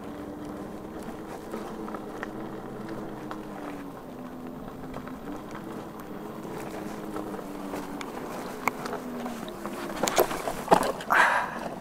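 Inmotion V11 electric unicycle's hub motor whining while riding on a dirt trail, a steady tone that wavers slightly in pitch with speed. Near the end, a quick cluster of sharp knocks and crunches from the wheel going over rough ground.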